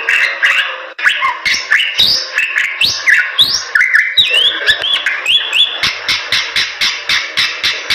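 Bali myna (Bali starling) singing a fast, chattering song of harsh clicking notes and whistled rising and falling glides, breaking off for an instant about a second in. The second half turns into a quick run of evenly repeated notes, about five or six a second.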